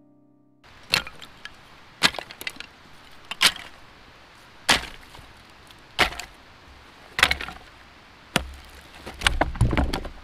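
Dry wooden sticks snapping: about seven sharp cracks, roughly one every second and a quarter, with a low rumble and rustling handling near the end.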